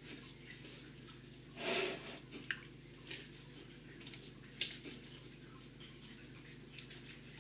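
Silicone pastry brush dabbing beaten egg onto tortilla-wrap parcels on a parchment-lined baking tray: faint soft taps and wet dabs, with a short hiss near two seconds in, over a low steady hum.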